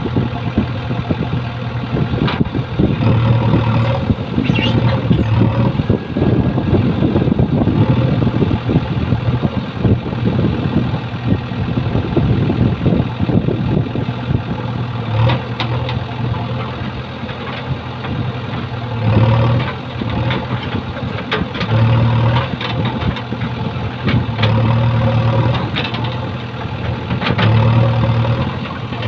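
JCB backhoe loader's diesel engine running steadily, swelling in repeated surges as the hydraulic digging arm works under load. Scattered knocks and scrapes from the bucket dragging soil.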